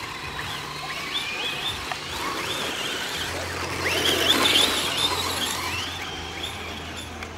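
Electric 1/10-scale RC off-road cars racing, their motors whining with pitch rising and falling as they accelerate and slow for corners. The whine is loudest about four seconds in, as cars pass close.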